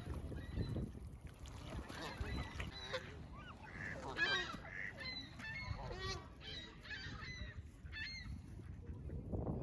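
Canada geese honking: a string of short, repeated calls, starting about two seconds in and thinning out near the end.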